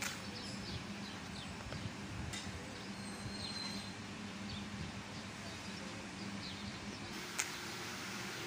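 Steady background noise with a low hum, a few faint high chirps scattered through it, and one sharp click about seven seconds in.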